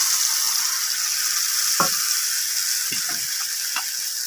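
Mustard paste sizzling in hot oil in a pan, a steady hiss. Utensils knock briefly on the pan a few times from about halfway through.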